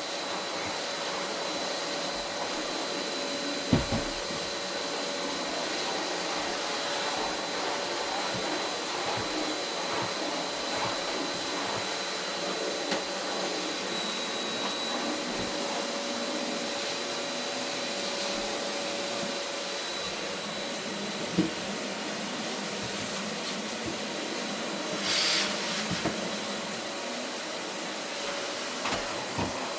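Vacuum cleaner running steadily over carpet, a constant whooshing hiss with a steady whine. A few short knocks come through, the sharpest about four seconds in and again past twenty seconds, with a brief louder rush near the end.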